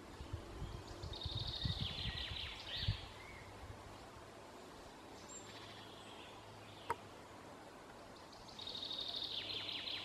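A songbird singing the same short phrase twice, about a second in and again near the end, over a faint woodland background. Low dull thuds in the first three seconds and a single sharp click about seven seconds in.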